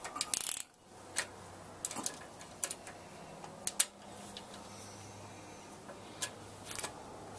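Small metal wrench on the nut of a drill press table's drift-pin bolt, making a scattering of sharp metal clicks and ticks as the tight nut is worked loose. The loudest cluster comes about half a second in.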